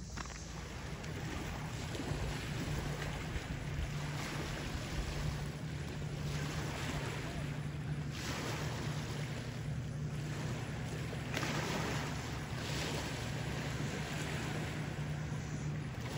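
Small waves lapping and washing on a rocky lakeshore in surges every second or two, with wind on the microphone and a steady low hum underneath.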